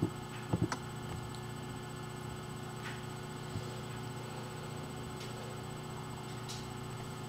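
Steady low electrical hum, with a few soft clicks about half a second in.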